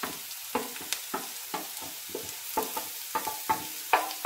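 Chopped onion and grated carrot frying in oil in a pan with a faint sizzle, while a spatula stirs them, knocking and scraping against the pan about three times a second.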